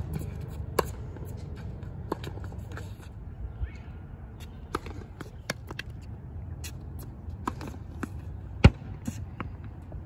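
Tennis ball struck by rackets and bouncing on a hard court during a rally, a series of sharp pops and thuds, the loudest hit a bit over two thirds of the way in, with sneakers scuffing the court. A low steady rumble lies underneath.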